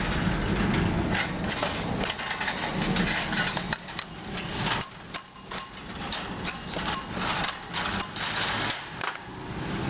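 Rapid irregular clicks and rattles from a wire parakeet cage as the mirrors go back in, with a low rumble in the first few seconds.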